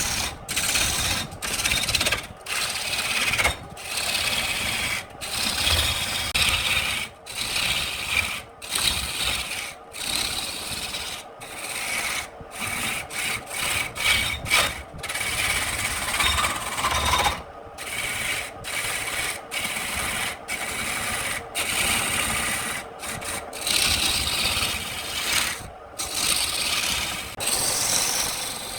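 A turning tool cutting into spinning wood on a wood lathe: a rough scraping hiss with short breaks about every second.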